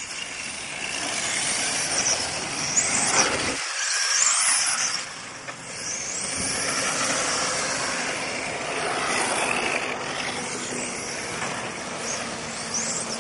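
Radio-controlled touring cars racing, their motors whining high and sweeping up and down in pitch several times as they speed up and slow through the corners, over steady background noise.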